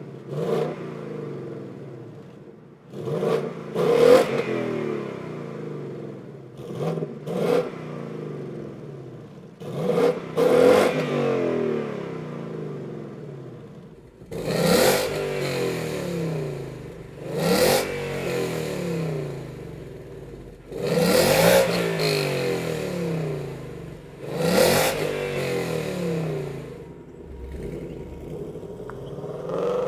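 A 2018 Ford Mustang GT's 5.0 L V8 is being revved repeatedly through the factory active exhaust set to quiet mode, each blip rising and falling back to idle. About halfway through the revs become louder and brighter, as the recording moves from the stock setup to the same exhaust with long-tube headers.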